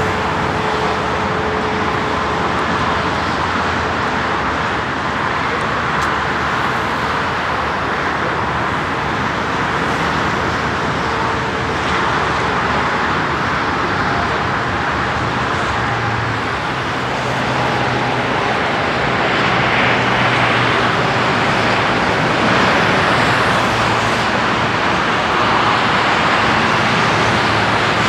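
Jet airliner engines running steadily: an Embraer 195 landing and rolling out, then, after a change about halfway, a Boeing 737-700's engines at taxi power, a little louder, as it comes toward the microphone.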